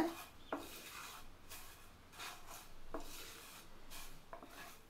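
Wooden spatula stirring and scraping vermicelli roasting in ghee in a nonstick pan: faint, repeated scraping strokes with a few light clicks of the spatula against the pan.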